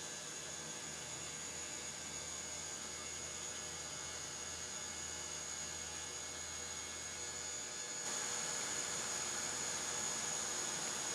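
Steady background hiss and hum with a thin, high, steady whine. It gets slightly louder about eight seconds in.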